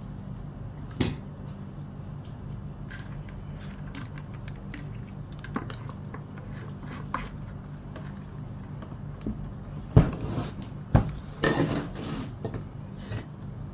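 Sharp knocks and clicks of the plastic housing covers on a Stihl 440 chainsaw being fitted and handled on a workbench. The loudest knock comes about ten seconds in, followed by a quick cluster of clatter, all over a steady low hum.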